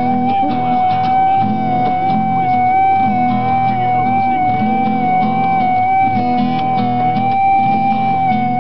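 Music: a repeating low chord pattern under one long held high note.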